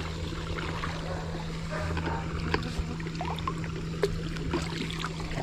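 Shallow creek water trickling and sloshing, with small splashes and knocks as hands work in the water to bring up a minnow trap. A faint steady low hum runs underneath.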